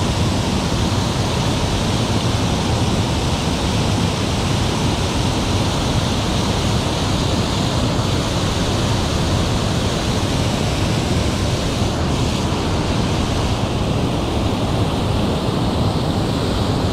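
Water pouring over a dam spillway and crashing into the pool below: a steady, even rush of falling water.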